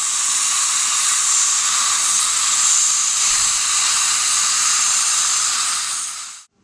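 Dental air-water syringe spraying a vigorous rinse onto acid-etched teeth while a suction tip draws the water away, making a steady hiss. The rinse washes off the etch gel and the demineralized enamel before bonding. The hiss cuts off sharply near the end.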